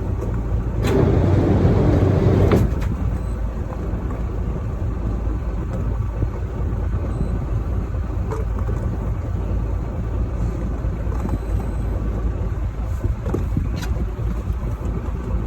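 Fishing boat's engine running with a steady low rumble. A louder rushing noise swells for about two seconds near the start, with a few sharp clicks.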